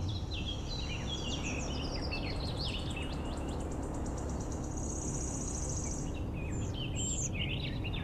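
Birds singing: many short chirps and falling whistles, with a rapid high trill about five seconds in, over a steady low background noise.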